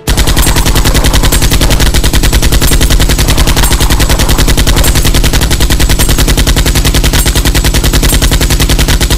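Loud, sustained automatic gunfire, a machine-gun sound effect firing in a very rapid, even rhythm without a break. It starts abruptly.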